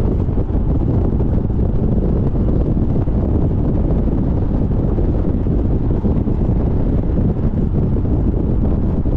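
Wind buffeting the microphone over steady road noise from a BMW Z4 on the move.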